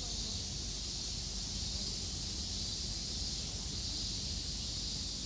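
Steady, even high hiss of outdoor background noise with a low rumble underneath; no distinct sound from the bear or the ball stands out.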